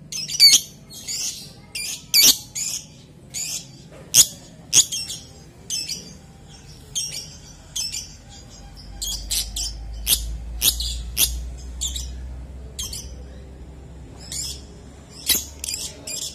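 Lovebird singing in full voice: a fast, uneven run of short, shrill, high chirps and squeaks with no pauses.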